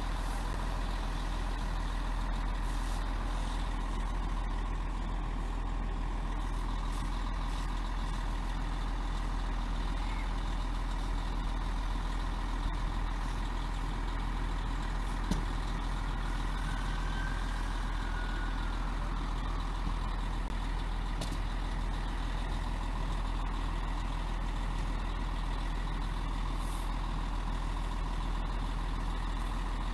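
Steady low rumble of a fire engine running at the scene, with a few faint steady tones over it.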